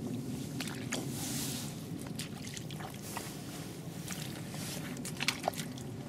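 Handling noise from an angler's waterproof clothing and gear: scattered rustles and small clicks over a steady low rumble, with a few sharper taps near the end.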